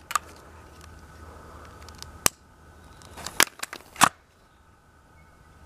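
A firecracker fuse burning in the breech of a break-barrel pellet rifle, with a faint fizz. Several sharp clicks come as the gun is handled and the barrel is snapped shut, the loudest about four seconds in.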